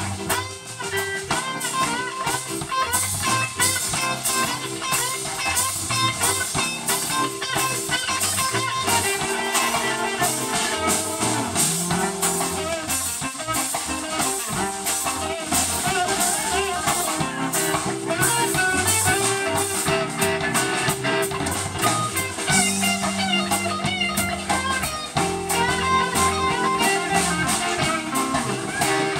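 Live blues band playing: an electric guitar takes the lead with bending notes over drum kit and keyboard.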